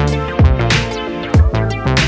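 Background music with a steady beat: deep kick-drum strokes about once a second, crisp percussion hits and sustained chords.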